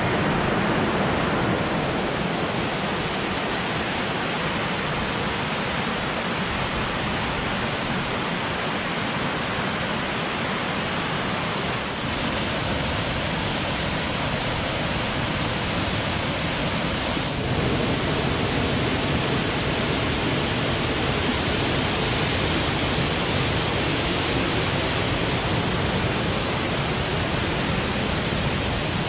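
Stone Mountain Falls running full after heavy rain: a steady rush of falling water. Its tone changes slightly twice partway through.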